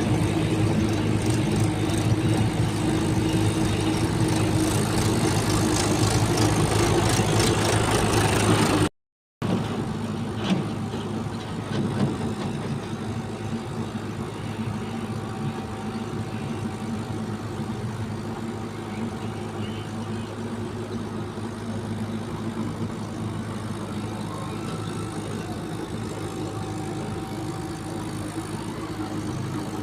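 Diesel engine of heavy machinery running steadily at a low speed. It is louder for the first nine seconds, cuts out for about half a second, then runs on more quietly, with a couple of faint knocks soon after.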